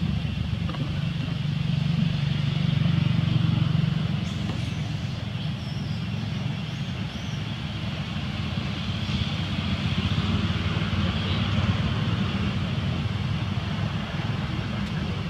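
Steady low rumble with an even hiss above it, slightly louder about two to four seconds in.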